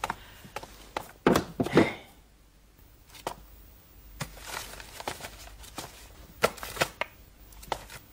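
Scattered knocks and clacks with soft rustling: someone moving about a small room and handling things. Two louder knocks come about a second and a half in, and a quicker cluster of sharp clicks comes near the end.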